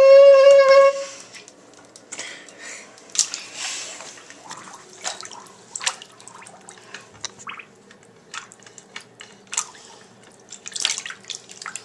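A loud, steady pitched tone is held for about a second at the start and cuts off. Then comes irregular splashing, sloshing and dripping in a water-filled bathtub as action figures are pushed around underwater by hand, with small knocks against the tub.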